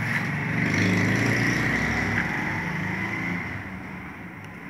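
A motor vehicle's engine passing by: a low hum that swells in the first second and fades away over the next few seconds.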